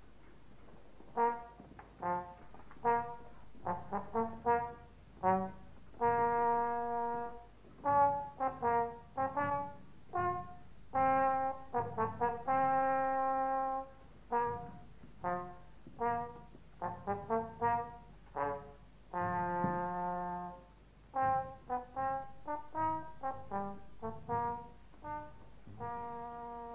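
A solo brass instrument playing a tune one note at a time, mostly short quick notes with a few longer held ones.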